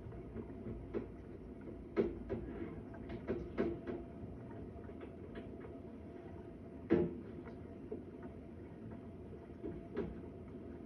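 Irregular knocks and clunks, a dozen or so, scattered over a steady low hum, the loudest about seven seconds in: building noise that the resident attributes to a neighbouring flat.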